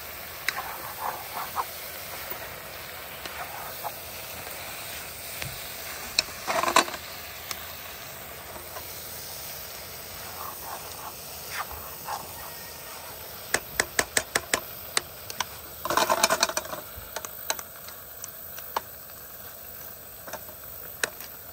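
A pot of meat and greens cooking with a steady hiss while a spatula stirs it, scraping and knocking against the pot. About two-thirds through comes a quick run of sharp clicks, followed by a louder scrape.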